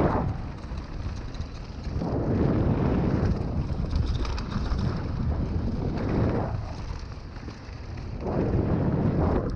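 Wind rushing over the microphone and mountain-bike tyres rolling over a loose, stony dirt trail at speed, a rumbling rush that eases twice and builds again.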